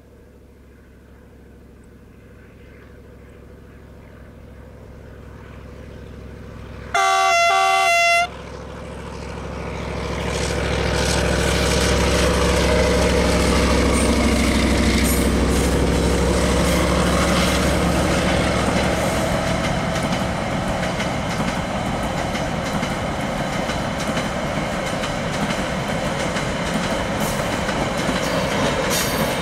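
A CRRC Qishuyan CDD5A1 diesel-electric locomotive approaches with a container freight train, growing steadily louder, and sounds its multi-tone horn once for about a second, some seven seconds in. The locomotive's engine then passes loudly close by, followed by the steady rolling of the container flatcars on the rails.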